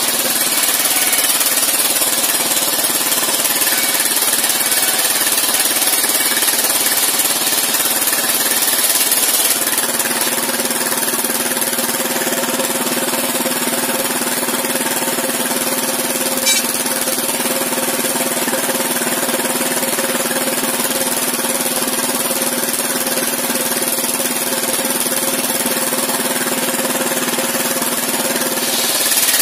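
A small engine-driven sawmill running steadily while its saw rips a squared timber beam that is pushed through by hand. The engine's steady hum carries a knocking beat, and a hiss rides over it.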